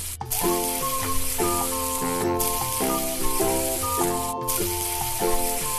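Instrumental children's music: a melody of short, quickly changing notes over a steady hiss that breaks off briefly about every two seconds.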